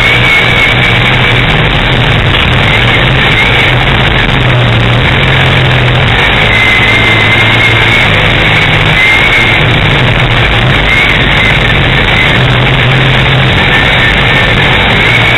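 Race car engine running hard, heard from inside the car, its pitch and strength swelling and easing every few seconds as the throttle is opened and lifted through the laps. A thin high whine wavers above it.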